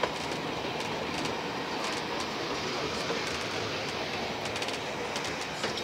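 Train running along the track, heard from the rear of the last carriage: a steady rumble and wheel-on-rail noise with a few faint clicks.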